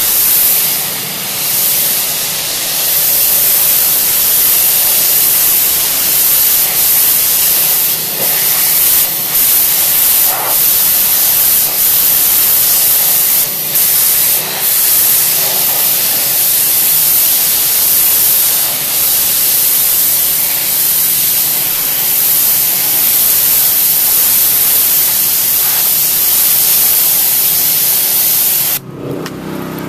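Hotsy hot-water pressure washer spraying a high-pressure jet into outdoor carpet, a steady loud hiss with steam. Near the end the spray cuts off suddenly, leaving a lower steady hum from the machine.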